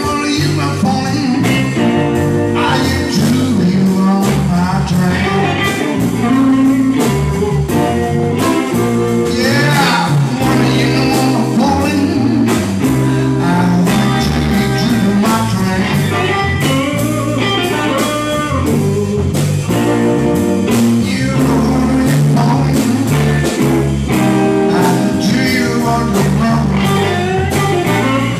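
Live blues trio playing: electric guitar, electric bass and drum kit, with a steady beat from the drums.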